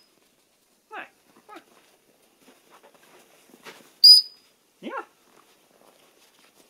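One short, sharp blast on a high-pitched dog training whistle about four seconds in, the signal for the dog to sit. Brief whines from the dog come about a second in and again just after the whistle.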